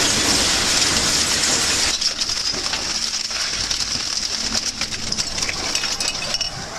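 Scrap metal clinking and rattling: many small sharp clinks over a steady hiss of machinery, loudest in the first two seconds.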